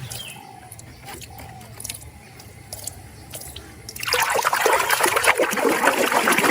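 Water running and splashing over a muddy plastic animal toy as it is rinsed, starting suddenly about four seconds in. Before that, only a few small clicks and taps of handling.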